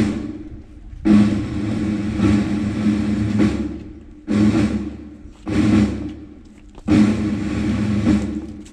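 Ceremonial drum rolls, four of them in a row, each starting suddenly and fading over a second or two.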